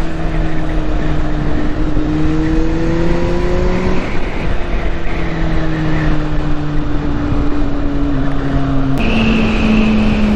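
Kawasaki Z800 inline-four motorcycle engine heard from the rider's seat under wind rush. Its note climbs for about four seconds, then eases off and falls, and changes abruptly about nine seconds in.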